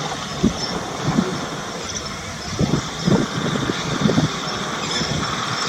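A vehicle engine idling steadily, with a few short, low knocks a little past halfway through.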